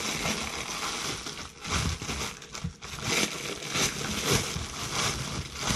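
Thin plastic packaging crinkling and rustling in the hands as a parcel is pulled open, with uneven crackles throughout.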